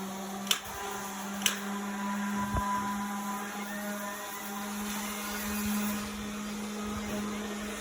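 Steady low hum of a small motor or machine, with two sharp clicks in the first second and a half.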